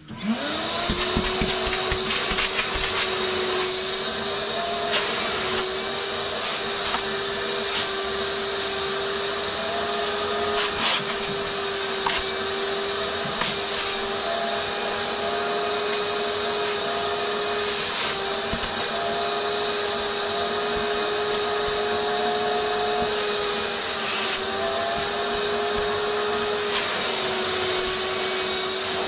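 Vacuum cleaner switched on right at the beginning, its motor spinning up quickly to a steady whine as it vacuums van seat upholstery. The pitch dips briefly a few times, with scattered clicks and knocks of the nozzle.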